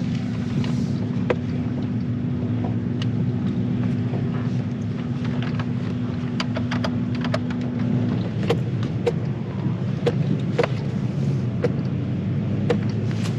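Ford F-150 pickup driving slowly along a sandy forest two-track, heard from inside the cab: a steady low engine drone with a held hum that drops away about eight seconds in. Scattered sharp clicks and knocks come through as the truck rolls over the rough track.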